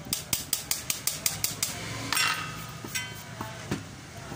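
A quick run of sharp knocks, about six a second for under two seconds, then a scraping rustle and a few scattered clicks, as the circuit board is knocked and shaken on the workbench to get the dirt out of it.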